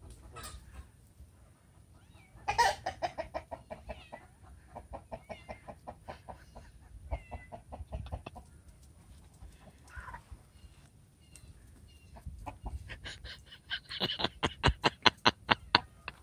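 A chicken clucking in quick repeated runs, with a loud outburst about two and a half seconds in and a faster, louder run of clucks near the end, about five a second.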